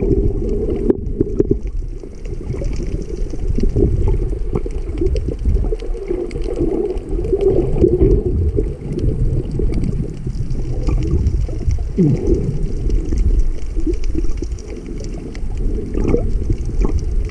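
Muffled underwater rumble and swish of water heard through a GoPro's waterproof housing as it moves through the water, with scattered faint clicks and crackles.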